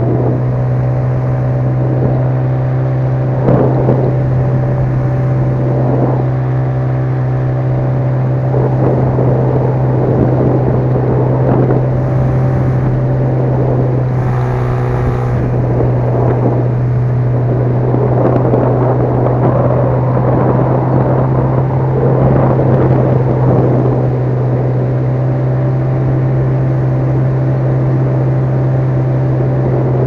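Small outboard motor running at a steady speed, pushing an inflatable boat along.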